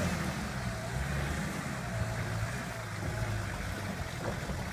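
Nissan Patrol's engine running steadily at low revs.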